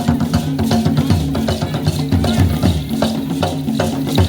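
Music with a steady beat of drums and other percussion over sustained low notes.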